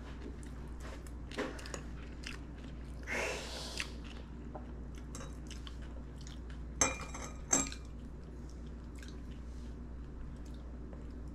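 A person chewing and biting food close to the microphone, with small mouth clicks. About seven seconds in, two sharp clinks like a utensil against a dish ring briefly.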